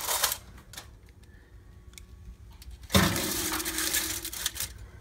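Foil-lined metal baking sheets being slid onto oven racks: a brief crinkle and a few light clinks, then about three seconds in a sudden loud stretch of metal scraping and rattling that lasts nearly two seconds.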